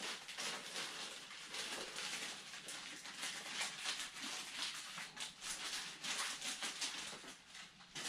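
Clear plastic packaging being handled and pulled off a foam model part, crinkling and rustling in a dense run of small crackles.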